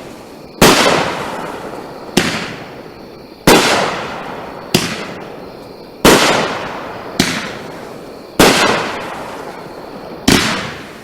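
Bright Star 'Spotlight' 500 gram nine-shot fireworks cake firing shot after shot. A loud bang about every two to two and a half seconds, each trailing off in a fading fizz of strobe crackle, with smaller sharp reports in between.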